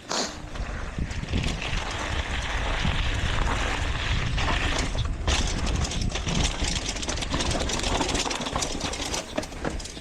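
Wind rushing over the microphone of a camera carried on a downhill mountain bike run, with the bike's frequent rattles and knocks over rough ground.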